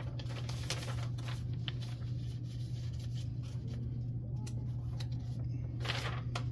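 Room tone dominated by a steady low hum, with a few faint scratches and rustles of paper and pen handling at a counter.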